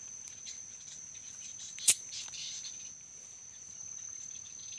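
Insects buzzing in a steady high-pitched drone in the bamboo, with faint scattered crackles and one sharp click about two seconds in.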